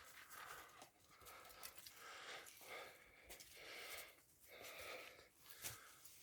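A person breathing hard, faint, in and out about once a second, with a few light clicks.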